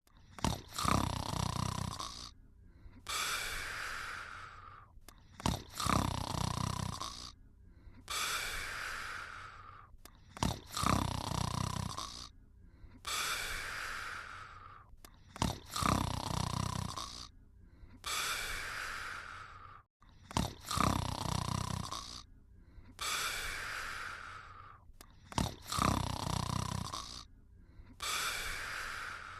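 Slow, regular snoring of a sleeper, about one breath every five seconds. Each breath is a loud, rough snore lasting a second or so, followed by a quieter, breathy breath.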